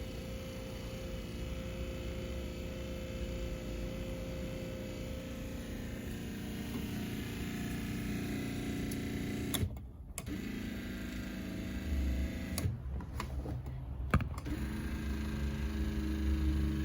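A small electric motor running steadily, broken by a few brief cuts.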